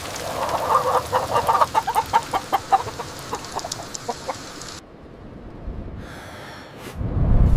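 Chickens clucking in a rapid run of short calls over steady rain for about four seconds; then the rain drops away, and near the end a loud low rumble sets in.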